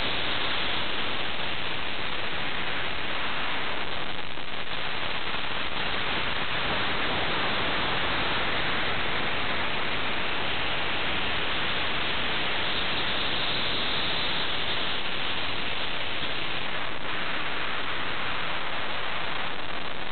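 Steady static-like hiss with no distinct events or changes.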